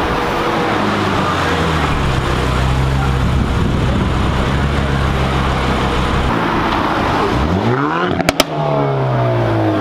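A performance car's engine running with a deep steady note, then revving up hard near the end with a couple of sharp cracks at the top, after which the pitch falls away as the car pulls off.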